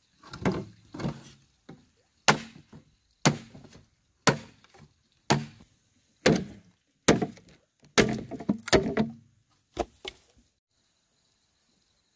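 Machete chopping into a green bamboo pole: about a dozen sharp woody knocks roughly a second apart, coming quicker near the end and stopping about ten seconds in.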